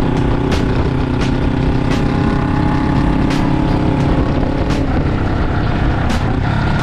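Suzuki GS400 parallel-twin motorcycle running through an SP 'Chara-o' aftermarket exhaust with its silencer fitted, on the move. The engine note holds steady for a few seconds and falls away as the throttle closes, giving the exhaust's 'suikomi' deceleration sound, with a few sharp cracks scattered through it.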